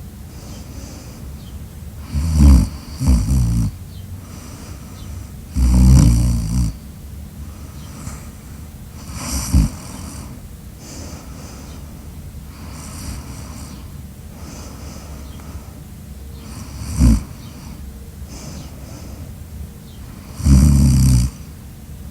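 A person snoring loudly in sleep. There are six snores at uneven intervals, some about a second long and some short, with quieter breathing between them.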